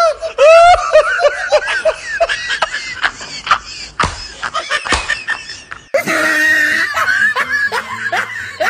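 Laughter: short, repeated snickering syllables, turning into a fuller, rhythmic laugh about six seconds in. Two sharp clicks fall about four and five seconds in.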